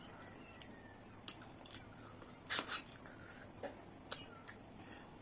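A person eating by hand: chewing and wet mouth clicks. Scattered soft clicks, with a louder cluster about two and a half seconds in.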